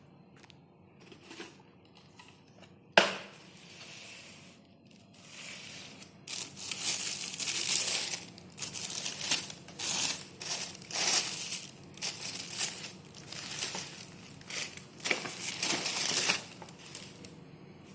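Shoe packaging being unwrapped: a sharp knock about three seconds in, then repeated crinkling and rustling of the wrapping from about six seconds until near the end.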